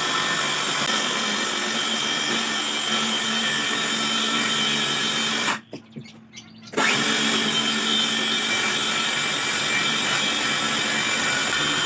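Cordless 20 V circular saw running and cutting through a plywood sheet, a steady whir. It breaks off for about a second a little past halfway, then carries on cutting.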